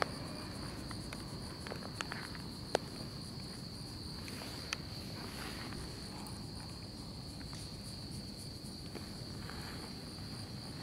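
Singing insects trilling steadily at one high pitch, with a few faint clicks.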